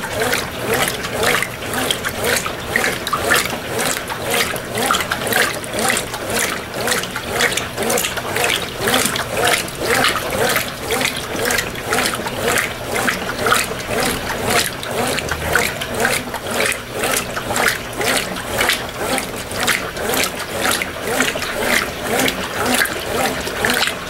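Brastemp BWP11 top-loading washing machine agitating a load of clothes in water. It makes a rhythmic sloshing and swishing in even, repeated strokes, the initial agitation of the wash cycle.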